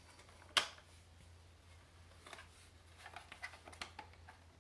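Plastic outer cover of a ResMed AirSense 10 CPAP being handled and hooked onto the unit: one sharp plastic click about half a second in, then a few faint light taps and clicks.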